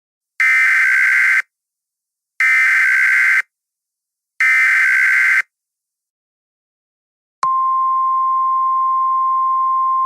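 Emergency Alert System SAME header: three one-second bursts of warbling digital data tones, evenly spaced. About seven and a half seconds in, the steady 1050 Hz NOAA Weather Radio warning tone comes on. This is the start of a new emergency alert.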